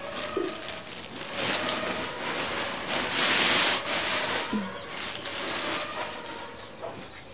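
Rustling and crinkling of shopping bags and wrapped clothes being handled, in irregular bursts that are loudest about three seconds in.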